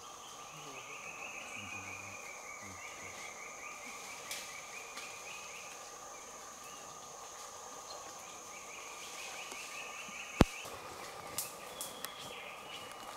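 Rainforest insect chorus: a steady high buzz over lower, even droning tones, with a rapid pulsing trill that comes in twice. Just over ten seconds in comes a single sharp click, the loudest sound, and the high buzz stops with it; a few smaller clicks follow.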